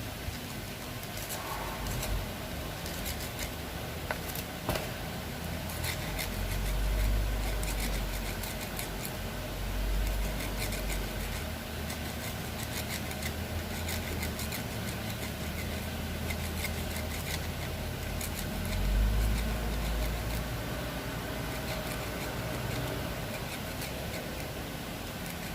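A vehicle engine running with a low rumble that swells louder three times, with scattered light clicks throughout.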